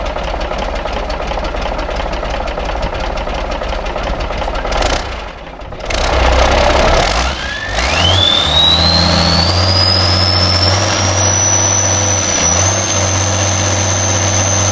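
Turbocharged truck diesel engine, being started for the first time after standing for years, turns over with a fast, even beat, drops off briefly about five seconds in, then catches and runs. A whine climbs steeply once it fires and levels off high and steady as the engine settles into an idle.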